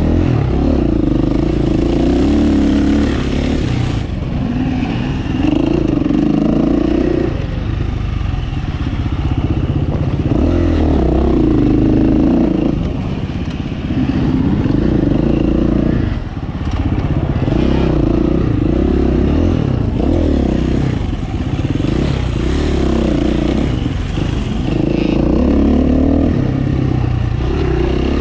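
KTM 350 four-stroke single-cylinder motorcycle engine, ridden hard on an enduro course: the revs climb and drop back again and again as the throttle is opened and closed every few seconds.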